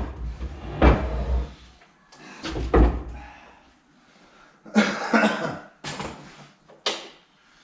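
Several heavy thuds and knocks, then lighter clattering near the end, as something heavy is set down and handled on a workshop bench or floor.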